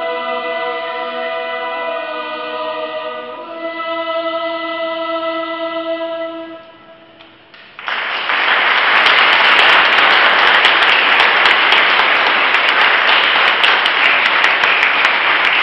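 A youth church choir sings its closing chords, the last held chord dying away about six and a half seconds in. After a brief pause the audience breaks into loud applause.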